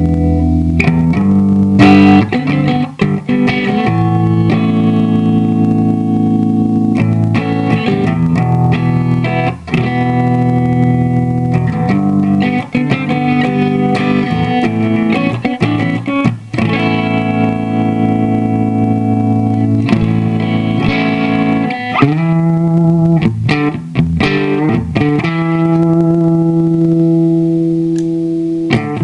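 Electric guitar played through a compressor pedal: strummed chords and picked notes, each held and ringing out at an even level between attacks.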